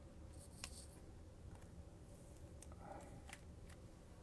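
Near silence with a few faint clicks and a soft rustle of a trading card being handled against clear plastic.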